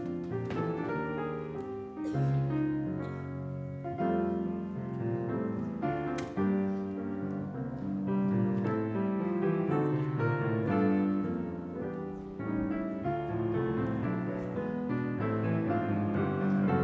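Keyboard music, chords on a piano, played as the postlude after the benediction.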